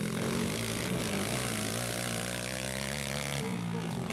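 Single-cylinder four-stroke 230cc dirt-bike engines running on the race track, the pitch shifting with the throttle and stepping up about three and a half seconds in.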